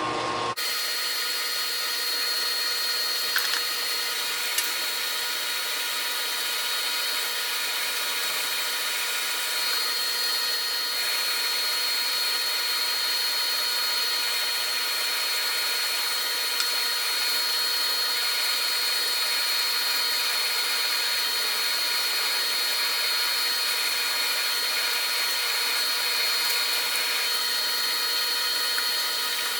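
Metal lathe turning slowly with a twist drill boring a hole through a solid steel rod: a steady whine and hiss of cutting, with a couple of small clicks a few seconds in.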